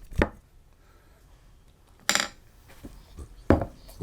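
Dishes and utensils being handled while a meal is prepared. There is a sharp clink just after the start, a brief scrape about two seconds in, and a louder knock about three and a half seconds in.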